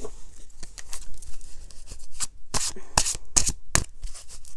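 Tarot cards being shuffled by hand: an irregular run of quick papery flicks and riffles, louder and denser in the second half.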